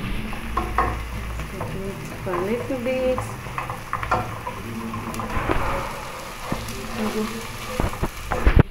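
Wooden spoon stirring and scraping frying onions and garlic-ginger paste in a non-stick pot: a steady sizzle under repeated clicks and knocks of the spoon against the pan, with a few sharper knocks near the end.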